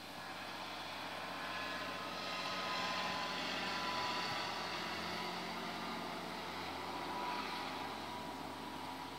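Tanker truck driving past, its engine and tyre noise growing louder to a peak about three to four seconds in, then slowly fading away.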